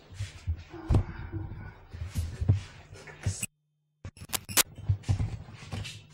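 Handling noise from a video camera carried by hand: irregular thumps, knocks and rubs with footsteps. About three and a half seconds in, all sound cuts out for about half a second in a recording glitch, then a few sharp clicks follow.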